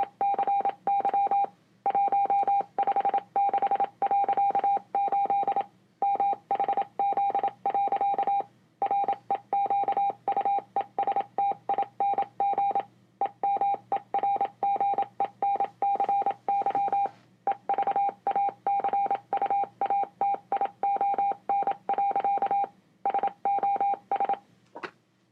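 Morse code tones played through loudspeakers: one steady mid-pitched beep keyed on and off rapidly in long runs of dots and dashes, broken by short pauses every few seconds. The code stops shortly before the end.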